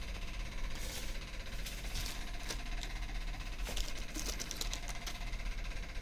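Steady low hum under scattered light clicks and rustles of small parts and packaging being handled, with a quick run of clicks about four to five seconds in.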